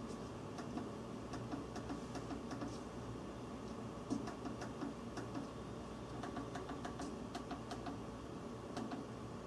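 Front control-panel buttons of a Zebra ZT-series label printer clicking under a thumb, pressed over and over in quick, irregular succession, over a steady low hum.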